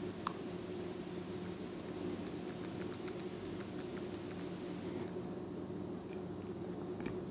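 Small metallic clicks and ticks from a disc detainer pick turning the discs inside a Rosengrens 32A81S safety deposit lock. A sharper click comes just after the start, then a run of quick light ticks from about one to five seconds in, and another click near the end.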